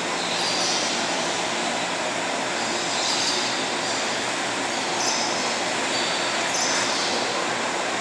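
Indoor aviary ambience: a loud, steady rushing noise, with short high-pitched bird calls breaking through every second or two.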